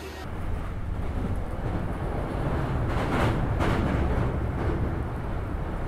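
Inside a moving train: a steady low rumble of the running carriage, growing louder a few seconds in.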